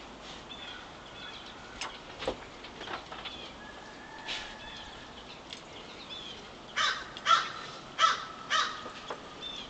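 A crow cawing: four loud, harsh caws in quick succession about two-thirds of the way in. Faint chips and short calls of small birds come and go throughout.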